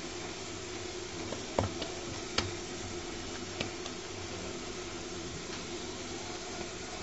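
Steady low background hum with a few light knocks, the loudest about one and a half and two and a half seconds in, from hands folding and pressing dough on a granite worktop.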